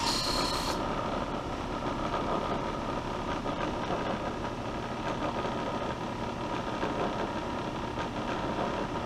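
Electric motor of a high-speed cloth buffing wheel running steadily, as a carbon steel knife blade and coarse polishing compound are worked against the spinning wheel to buff off rust. A short hiss in the first second as work is pressed to the wheel.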